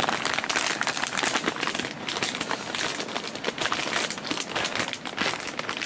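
Plastic potato-chip bag crinkling as it is handled and pulled open, a dense run of rustles.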